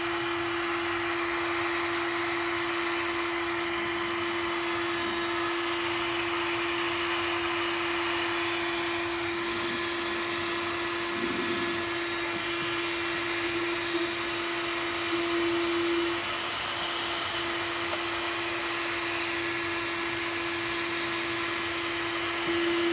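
Electric heat gun running steadily: an even fan rush with a constant hum and a thin high whine.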